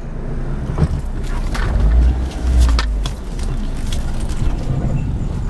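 Low rumble of a 1998 Toyota RAV4 driving, heard from inside the cabin, with scattered knocks and clicks.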